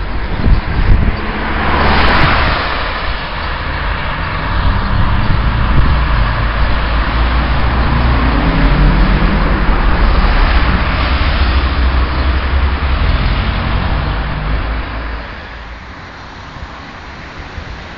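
Road traffic: cars passing with a loud, low engine rumble, one sweeping past about two seconds in. Around fifteen seconds in it drops to a quieter, steady traffic hum.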